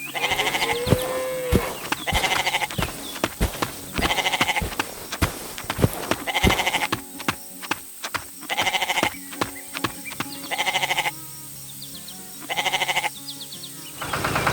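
Sheep bleating repeatedly, about seven short wavering bleats, over background music with sharp clicking taps.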